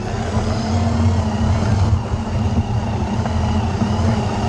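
FTC competition robot's electric drive motors and gearboxes running with a steady low hum and a faint high whine, picked up by a camera mounted on the robot itself.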